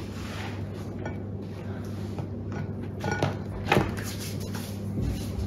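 A couple of light knocks about three seconds in and a soft thump near the end, as things are set down on a wooden kitchen countertop, over a steady low hum.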